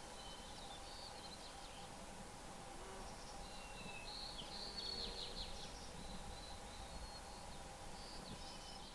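Quiet outdoor ambience: a steady insect hum, with short runs of high, thin bird chirps about a second in, around four to five seconds in, and near the end.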